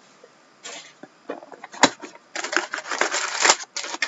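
Trading card packaging being opened by hand: crinkling and tearing of wrappers, with two sharp clicks, one near the middle and one toward the end.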